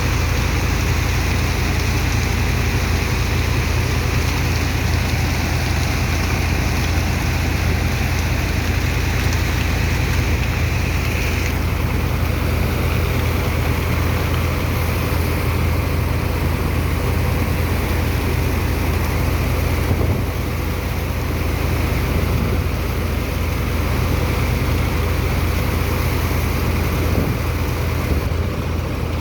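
Sand-unloading dredger pump running steadily: a deep engine hum under a constant rush of water and sand slurry. The upper hiss eases slightly about a third of the way in.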